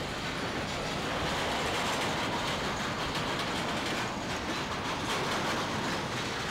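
A train's railroad cars rolling past, with a steady rumble and the clatter of wheels over the rails.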